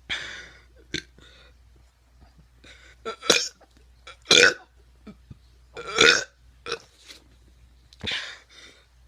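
A teenager burping on purpose: a run of about five loud burps, one to three seconds apart, with a few smaller ones between.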